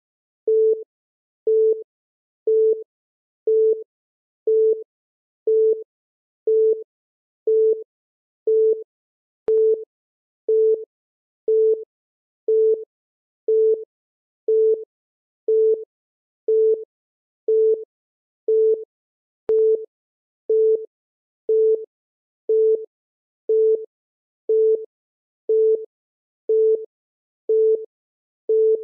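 Countdown timer beeping once a second: a short electronic beep of one steady tone, repeating evenly as each second ticks down.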